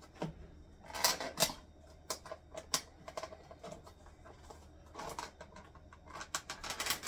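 Snap-on plastic lid being pried off a plastic compartmented meal tray: a string of sharp clicks and crackles as the rim lets go, loudest about a second in and again near the end.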